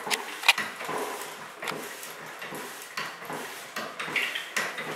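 Hand-operated drywall mud pump being stroked to fill a taping bazooka (automatic taper) with joint compound: irregular clicks and knocks from the pump handle and mechanism.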